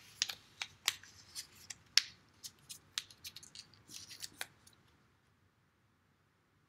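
Small slip of paper being folded and creased by hand close to the microphone: a run of sharp crinkles and crackles that stops after about four and a half seconds.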